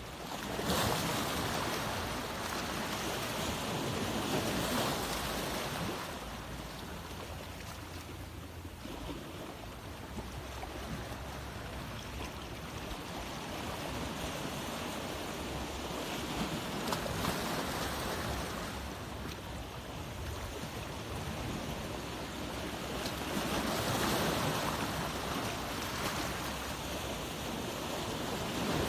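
A steady rushing noise with no clear tone, swelling and fading every few seconds.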